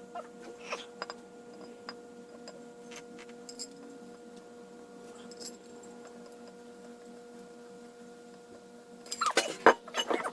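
A steady electrical hum with scattered light clicks of parts being handled, then a quick burst of sharp knocks and clatter about nine seconds in, the loudest sound here.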